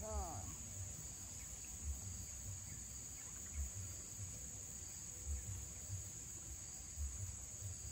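Steady high-pitched drone of insects, with low dull thumps about once a second.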